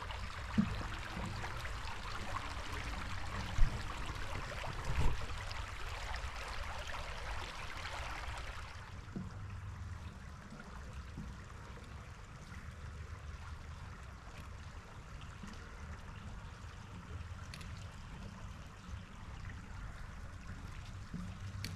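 A small woodland creek running and trickling, fairly strong for the first nine seconds or so and then fading to a faint murmur. A few soft thumps in the first five seconds.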